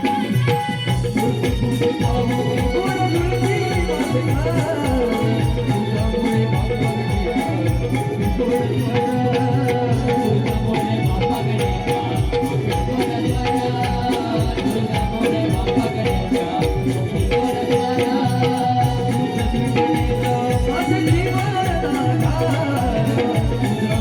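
Devotional folk music: a steady, regular drum beat with a shaken rattle over held melodic tones, with no clear words.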